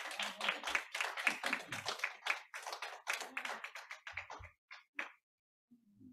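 A few people clapping by hand. The claps are dense at first, then thin out and stop about five seconds in.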